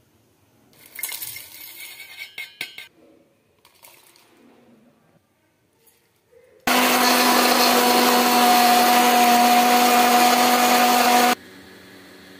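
A few light metallic clinks, then an electric mixer grinder running loud and steady for about five seconds, starting and stopping abruptly.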